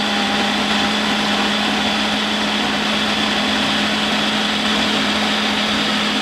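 Personal blender running on its Extract program, a loud, steady motor hum as it blends frozen fruit into a smoothie.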